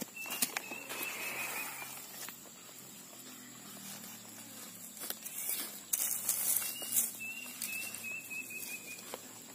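A hoe strikes into loose soil, then scattered scrapes, pats and rustles follow as hands press soil around a taro cutting being replanted, with a busier run of scraping about six to seven seconds in.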